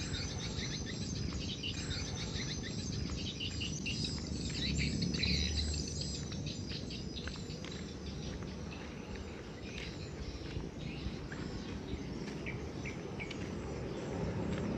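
Rural outdoor ambience of small birds chirping over a steady buzz of insects, with a low rumble that swells and fades around five seconds in.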